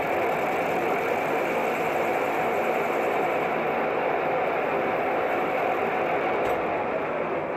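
Metal lathe running steadily, its four-jaw chuck spinning while a boring tool cuts inside an outboard motor's water-pump cup to enlarge it to fit a Yamaha impeller.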